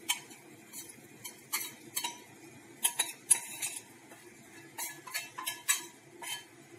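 A metal spoon clinking and scraping against a small stainless-steel bowl in a string of irregular taps, knocking chili flakes out of it.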